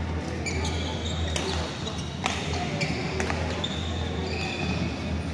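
Badminton play on several courts: sharp racket strikes on shuttlecocks, a few of them about a second apart near the middle, and short high squeaks of shoes on the court floor. A steady low hum of the hall runs underneath.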